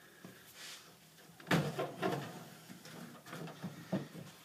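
Sheet-metal air-handler panel lined with fibreglass insulation being handled and fitted around the copper refrigerant lines: irregular knocks, clunks and scraping. The loudest knock comes about a second and a half in.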